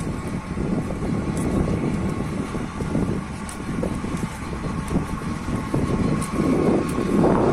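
Steady low rumble of a moving car, road and engine noise with some wind buffeting.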